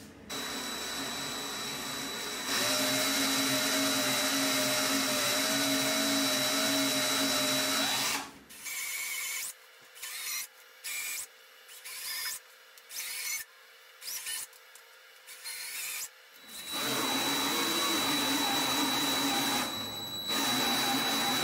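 Cordless drill turning the rollers of a wire-stripping machine as insulated wire is fed through to slit its insulation. The motor runs steadily, then in a string of short bursts in the middle, then steadily again.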